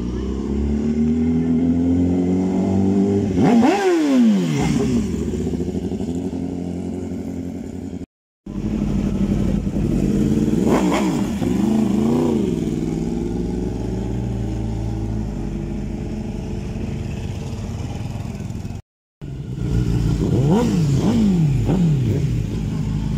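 Sport motorcycles riding past close by, one clip after another, their engines revving and then dropping sharply in pitch as each bike goes by, about four seconds in, about eleven seconds in and near the end. The sound cuts off abruptly twice between clips.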